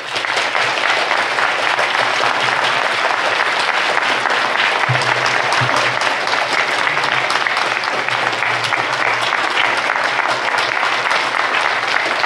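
Large audience giving a long, steady ovation: dense clapping from many hands.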